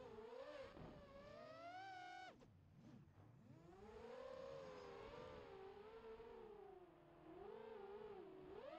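FPV racing quadcopter's brushless motors whining, the pitch rising and falling continuously with the throttle. The sound breaks off sharply a little over two seconds in, then picks up again.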